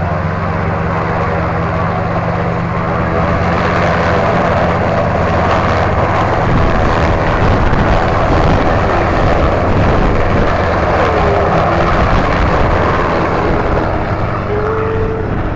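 Helicopter flying past, a steady rotor and engine sound that grows louder to a peak in the middle and fades near the end.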